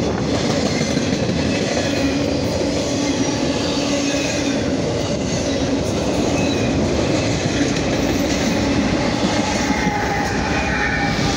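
Intermodal freight train rolling past close by: a steady rumble of steel wheels on rail, with clickety-clack over the rail joints and faint high wheel squeal. Near the end, BNSF diesel locomotives go by.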